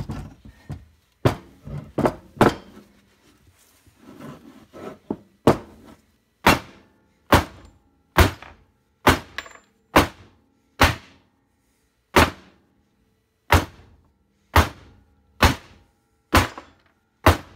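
Heated aluminium-alloy crankcase half of a 1964 Norton Atlas being banged down again and again on a wooden countertop to jar the main bearing out of its housing. A few lighter knocks, then about a dozen heavy thunks, roughly one a second.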